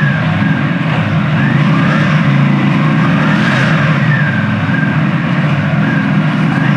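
Keeway V302C's 300cc V-twin engine running and being revved lightly, its pitch rising and falling a few times.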